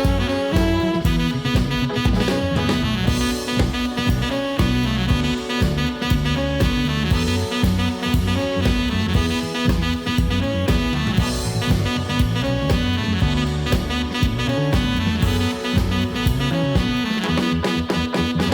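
Jazzy background music with saxophone over a drum kit.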